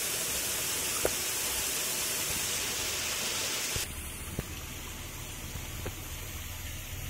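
Steady, even outdoor hiss that drops away abruptly about four seconds in, leaving a quieter low rumble with a few faint clicks.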